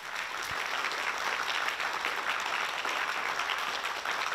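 Theatre audience applauding steadily, welcoming a speaker onto the stage.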